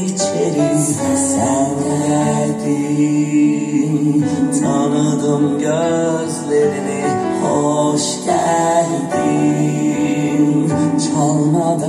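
A song with singing, played from CD through ITT Hyperion H2-70 loudspeakers driven by a Grundig V 5000 amplifier, heard in the room.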